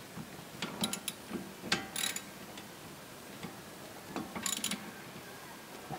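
Hand socket ratchet clicking in three short runs of quick clicks as its handle is swung back and forth to turn a bolt.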